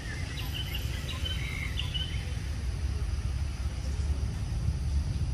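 Outdoor ambience: a steady low rumble, with a few short, faint high chirps in the first two seconds.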